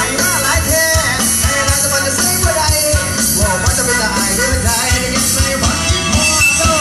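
Band music with a singing voice over a steady drum beat.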